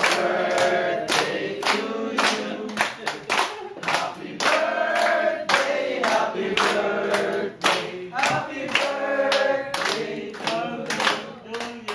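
A group of people singing together while clapping their hands in time, a steady beat of claps under the song.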